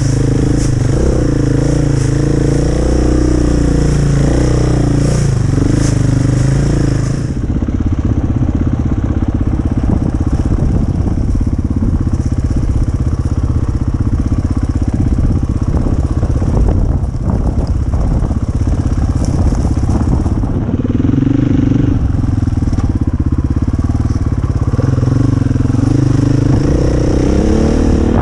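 KTM dirt bike engine running while riding, its note rising and falling with the throttle, holding steadier through the middle stretch.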